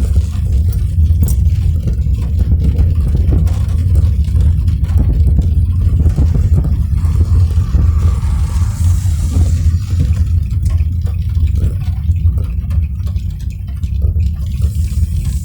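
Steady low rumble of a car driving on a wet road, with scattered sharp taps of rain striking the car. A soft hiss swells and fades about halfway through.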